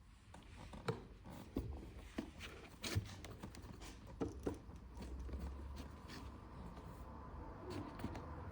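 Light clicks, taps and faint rubbing of hands handling a phone and cleaning things on a workbench, with sharp clicks about once a second, most likely while wiping the phone down with isopropyl alcohol.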